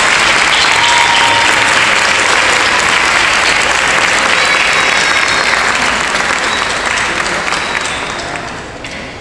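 Large audience applauding loudly and steadily, the clapping dying away over the last two seconds.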